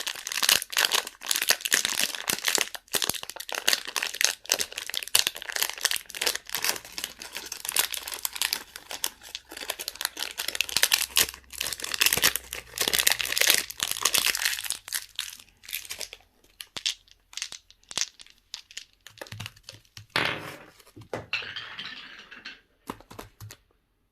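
Candy wrappers crinkling and tearing as sweets are unwrapped, a dense continuous crackle that thins to scattered crinkles in the last third.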